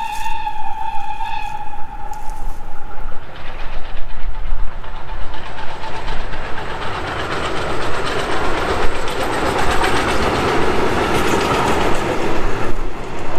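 Steam locomotive TKt48-18's whistle holding one note that fades out a couple of seconds in. Then the train comes up and passes close by: a rush and clatter of the locomotive and carriages on the rails that builds for several seconds and stops suddenly near the end.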